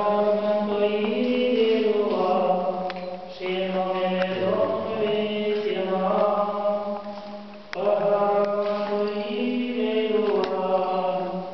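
Orthodox church chant: voices singing slow melodic phrases of long held notes, with a new phrase starting about four seconds in and again about eight seconds in.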